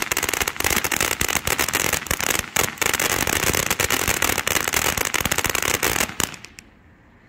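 500-gram firework fountain spraying sparks: a steady rushing hiss packed with rapid crackling pops. It stops fairly abruptly a little over six seconds in.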